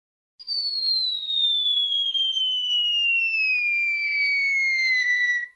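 Cartoon falling whistle sound effect: one long high whistle that slides steadily down in pitch for about five seconds, the classic sound of something dropping from a height.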